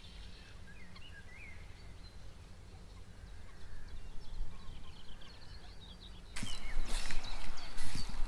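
Birds chirping faintly over a steady low rumble of wind. About six seconds in, the sound switches abruptly to louder rustling noise with scattered clicks.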